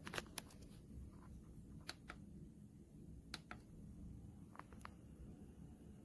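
Near silence: faint low room hum with a few soft clicks, some in quick pairs.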